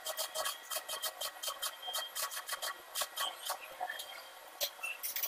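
Stick arc welding on a steel bar: the electrode's arc crackling in quick irregular bursts. It thins out about three and a half seconds in and picks up again near the end.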